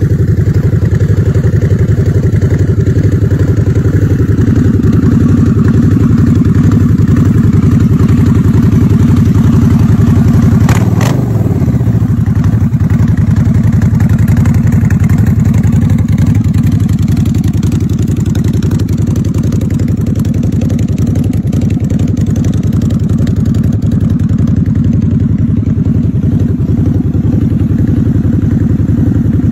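Custom Harley-Davidson V-Rod's V-twin engine idling while parked, loud and steady. About eleven seconds in there is a brief sharp sound that falls in pitch, and the engine runs a little quieter after it.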